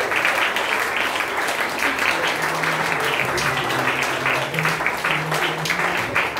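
Audience and stage performers applauding together: many hands clapping densely and steadily.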